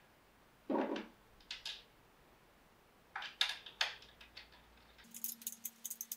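Faint clicks and taps of small rifle parts being handled as a side attachment point is screwed into a Sako S20's forend, ending in a quick run of fine rapid ticks.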